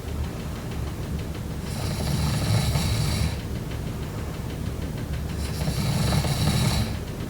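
A person snoring in deep sleep: two rattling snores about four seconds apart, each lasting about a second and a half, with quieter breathing between them.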